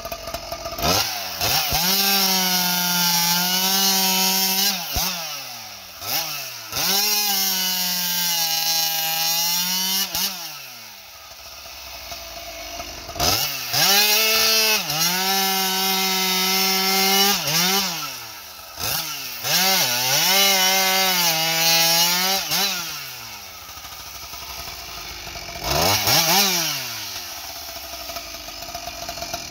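Ported Husqvarna 95 cc two-stroke chainsaw (395XP) with a 36-inch bar bucking logs at full throttle. There are four cuts, each a few seconds long, where the engine pitch pulls down and holds steady under load. Between them the saw revs up and drops back to idle, and it gives one last short rev near the end.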